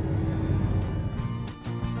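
A low engine rumble gives way about a second in to background music with plucked acoustic guitar notes.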